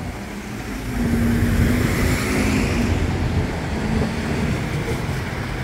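Road traffic passing close by: engines and tyre noise, with one vehicle's engine note holding steady for a couple of seconds in the middle.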